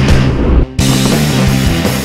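Loud heavy rock music, dropping out for an instant a little over half a second in.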